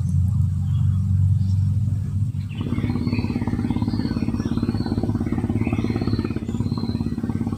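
A small engine running, a deep rumble that changes about two and a half seconds in to a fast, even pulsing with a steady low hum.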